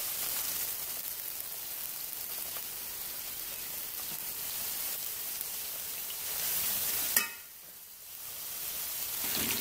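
Coated chicken pieces deep-frying in hot oil in a wok, a steady sizzle. A sharp click comes a little after seven seconds, after which the sizzle drops away for about a second and then returns.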